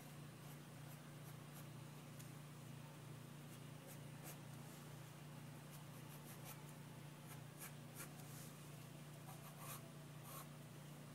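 Graphite pencil sketching on a sheet of paper: faint, short scratching strokes that come thicker in the second half, over a steady low hum.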